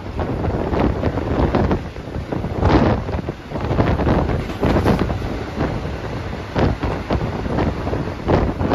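Wind buffeting the microphone in irregular gusts over the running noise of a moving passenger train.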